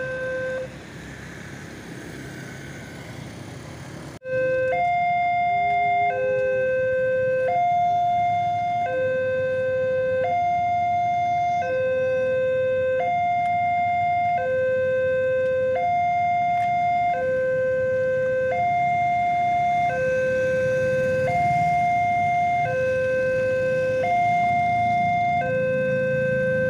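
Railway level-crossing warning alarm sounding, an electronic two-tone signal that alternates steadily between a higher and a lower tone, each held a little over a second. It is faint at first and loud from about four seconds in, which means a train is approaching the crossing.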